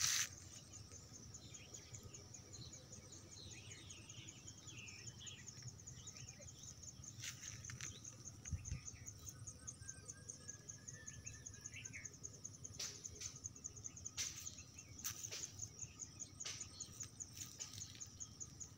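An insect trilling steadily in a rapid, high-pitched pulsing chirr, with scattered short bird chirps and a few faint clicks.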